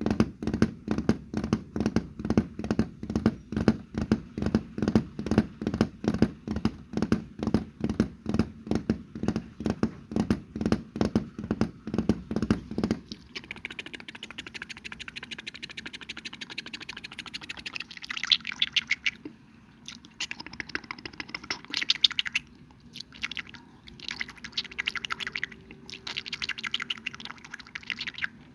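Close-miked chewing in a steady rhythm of about three chews a second. About halfway through it changes to crisper crackling, crunching sounds in uneven bursts.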